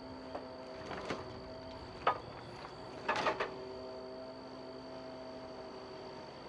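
A few short knocks and clatters over a steady hum.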